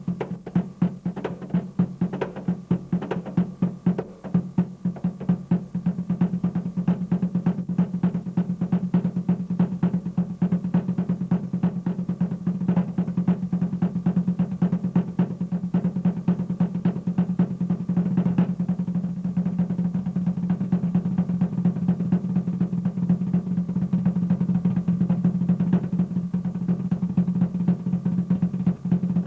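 Fast drumming that pulses in quick groups for the first few seconds, then runs into a dense, near-continuous roll over a steady low drone.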